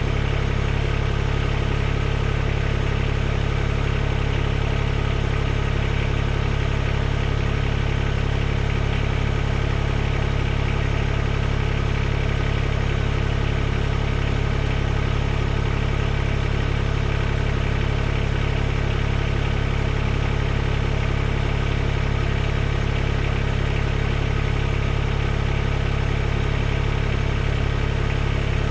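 Mahindra eMax 20S HST tractor's small three-cylinder diesel engine idling steadily, with no change in speed.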